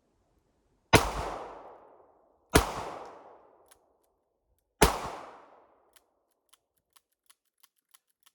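Three gunshots from a Charter Arms PUG .357 Magnum snub-nose revolver loaded with wadcutter target rounds, spaced unevenly and each echoing away over about a second. After the last shot comes a quick run of light metallic clicks from the revolver's action, about three a second, as the gun fails to fire; a couple of the old rounds misfired.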